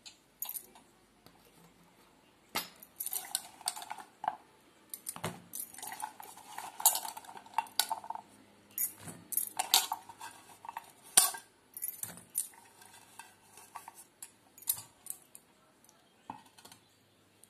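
Bitter gourd slices dropped by hand into a stainless steel bowl of spiced flour mix: irregular light clicks and clatters against the metal bowl, starting a couple of seconds in and going on in bursts until near the end.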